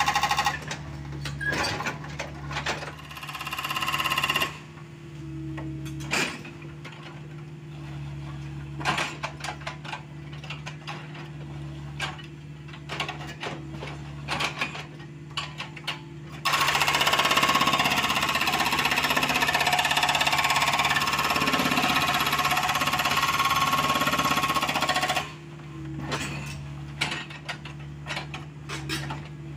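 Hydraulic breaker on a Cat 305.5E2 mini excavator hammering rock in bursts: briefly at the start, again a few seconds in, and then a long unbroken run of about nine seconds past the middle. The excavator's diesel engine runs steadily underneath, with scattered knocks between the bursts.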